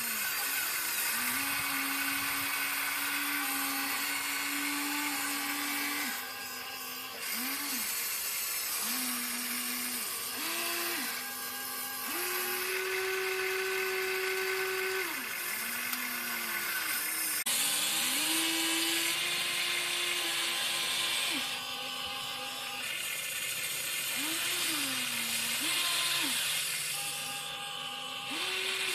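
Small electric gear motors of an RC excavator whining as its boom, arm and bucket work, in runs of one to three seconds. Each run starts and stops with a short glide in pitch, over a steady high gear hiss.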